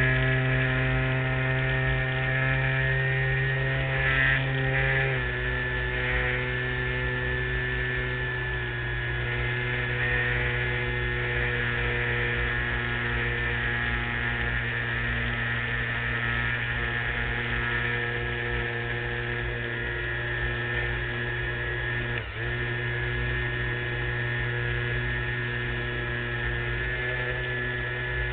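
LazyBee RC model airplane's motor and propeller running steadily in flight, heard from a camera on top of the wing. The pitch steps down about five seconds in, and the sound dips briefly about 22 seconds in.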